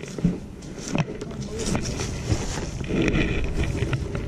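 Footsteps rustling through dry grass and brush, with wind rumbling on the microphone and a few short snaps or knocks.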